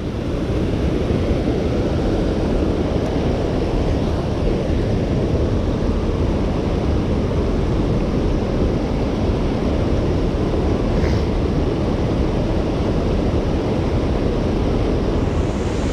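Steady rushing noise of flowing creek water, even throughout, with a faint click about eleven seconds in.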